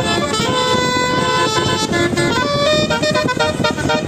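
Bus 'telolet basuri' musical horn playing a tune of short notes that change pitch every fraction of a second, over a continuous noisy background.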